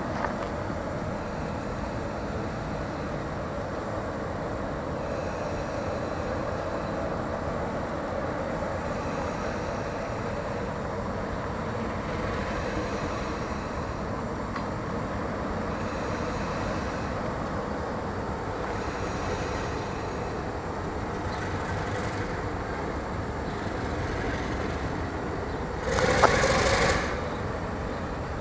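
Diesel locomotive D-16012 running as it moves slowly along the station track, a steady engine rumble. About two seconds before the end, a loud blast about a second long cuts across it.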